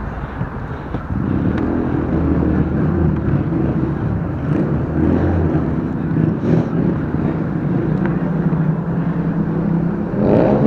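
Street traffic with a vehicle engine running steadily, and road noise.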